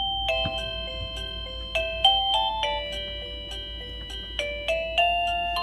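Liztek wireless doorbell receiver playing one of its electronic chime tunes: a quick melody of bell-like notes, each ringing on under the next.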